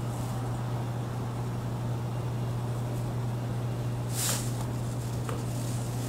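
A steady low hum, with a short rustling swish about four seconds in and a faint click just after, as a hand works a tiny screw out of a laptop's bottom case with a precision screwdriver.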